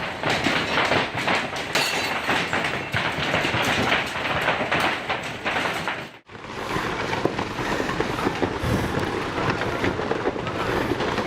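Hailstones pelting hard surfaces in a dense, rapid clatter. About six seconds in it cuts off abruptly, and a different steady, crackling outdoor noise takes over.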